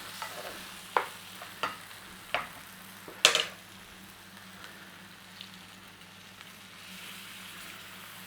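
Vegetables and flour sizzling in a frying pan while a utensil stirs and scrapes, loosening what has stuck to the bottom. The utensil knocks sharply against the pan about five times in the first three and a half seconds, the loudest about three seconds in, over a steady sizzle.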